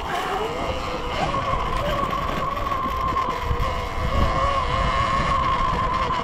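Surron Ultra Bee electric dirt bike riding along, its motor giving a high whine at a fairly steady pitch over a low rumble.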